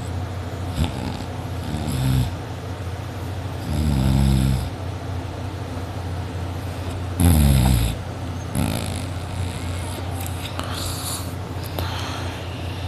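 A person snoring loudly in deep sleep, one snore every few seconds, the strongest about four and seven seconds in, over a steady low hum. The sleeper puts the loud snoring down to drinking too much before bed.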